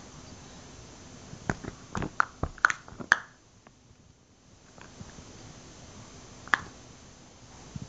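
A quick run of sharp smacks and taps, then a single one later, from a baby's hands slapping down on a padded cushion.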